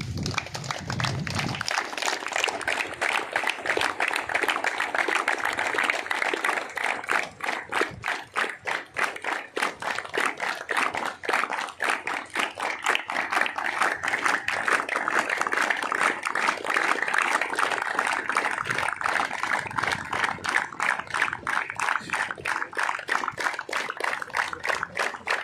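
A crowd clapping steadily together in a quick, even beat.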